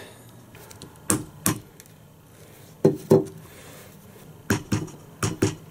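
Short, sharp knocks and clicks of kitchen items being handled. There is a pair about a second in, another pair near the middle, and a quicker cluster near the end.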